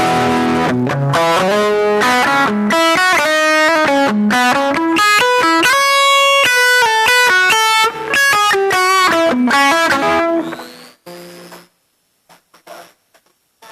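Electric guitar played through a Caline C300 multi-effects pedal: a melodic run of single notes and short chords that stops about eleven seconds in. After it stops, a faint high whine remains, which comes from the microphone.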